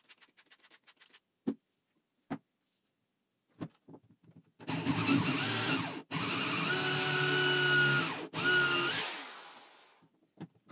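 Black+Decker corded electric drill boring into the end of a small cylindrical workpiece: it starts about halfway in, runs at speed with two brief trigger releases, then winds down near the end. Light handling clicks and taps come before it.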